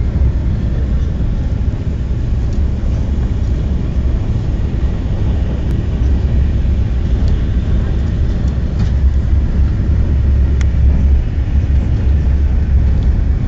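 Steady low rumble of a TGV Atlantique high-speed train running at speed, heard inside the passenger cabin, with a few faint clicks.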